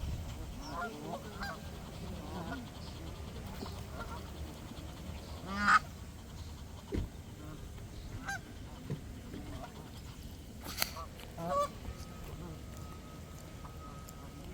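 Birds calling: a scattered series of short calls, the loudest about six seconds in, with a sharp click near eleven seconds.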